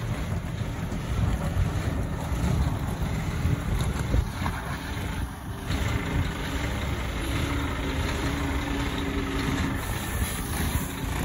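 Scania G480 tractor unit's 13-litre inline-six diesel running at low revs as the truck moves slowly, a steady low rumble.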